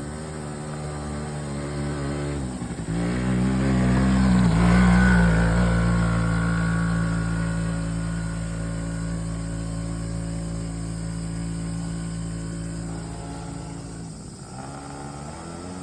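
ATV buggy engine running at full throttle on an uphill climb. The engine drops off briefly about two and a half seconds in, then revs back up, is loudest a couple of seconds later, and eases slowly with another short dip near the end.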